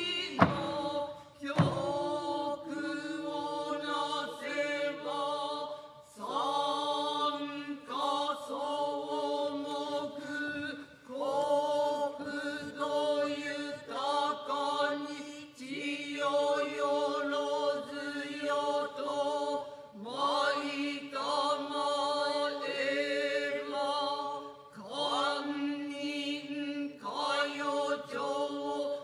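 Kanze-school Noh chorus (jiutai) chanting utai in unison, men's and women's voices together, in long drawn-out phrases with short breaks for breath. Two sharp knocks stand out near the start.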